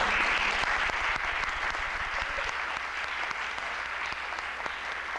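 Audience applause, many hands clapping together, loudest at the start and gradually dying down.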